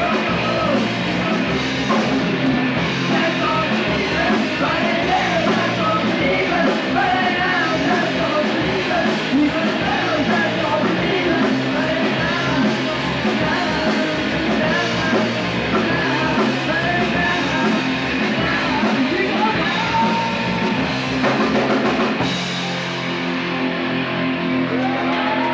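Punk rock song with singing, drums and electric guitar. About 22 seconds in the drums stop and held guitar and bass notes ring on.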